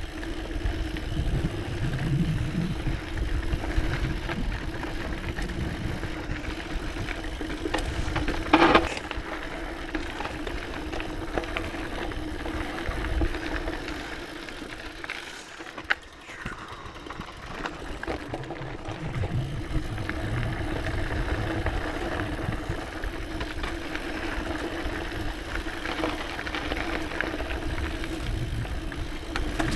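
Scott Genius full-suspension mountain bike riding down a dirt singletrack: tyres rolling over dirt and roots with bike rattle and rumbling wind noise, over a steady hum that fades briefly around the middle. A sharp knock about nine seconds in, with a smaller click near the middle.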